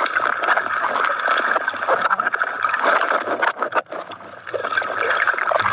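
Muffled underwater water noise picked up by a camera below the surface: a steady wash of sloshing and gurgling, dipping briefly about four seconds in.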